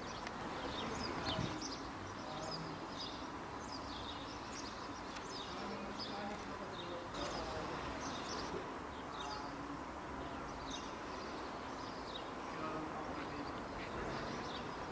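Small birds chirping and singing, many short high calls in irregular succession, over a steady hiss of outdoor background noise.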